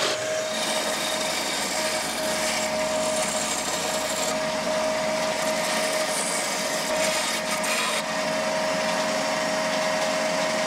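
Power tools cutting wood: a drill press turning a circle cutter through a wooden board, then a band saw trimming the board. A steady motor hum runs under it, and the sound changes abruptly twice along the way.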